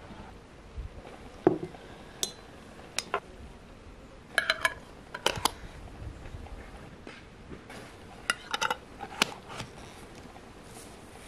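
A metal spoon clinking against glass jars, then metal screw lids clicking against the glass as they are twisted onto the jars, with the clinks coming singly and in short quick clusters.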